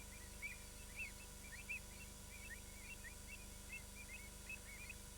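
A flock of birds calling together: many short, high, hooked calls, several a second, over a faint steady hum.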